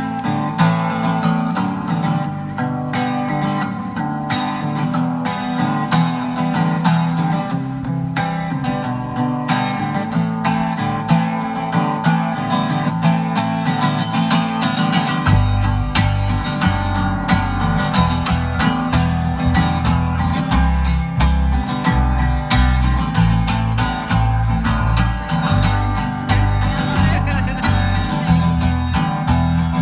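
Live band playing an instrumental song intro: a strummed acoustic guitar, with low bass notes coming in about halfway through.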